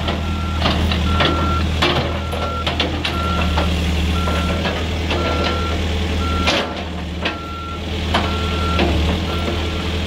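Backup alarm of a 2002 CAT 430D backhoe loader beeping about once a second as the machine reverses, over its diesel engine running with a steady low rumble. A few short knocks come through along the way.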